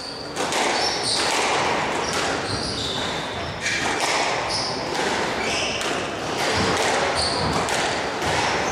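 Squash rally: the ball is struck by rackets and cracks off the walls and glass in a string of sharp impacts, while rubber-soled shoes squeak in short high chirps on the wooden court floor.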